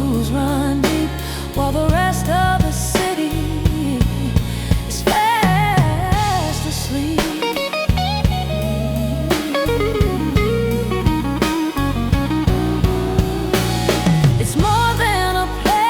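Soul song with no sung words: a drum kit keeps a steady beat under bass and a lead melody that slides and bends in pitch.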